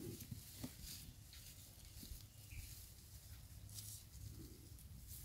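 Near silence: faint scattered clicks and rustles over a low hum, with one short high chirp about two and a half seconds in.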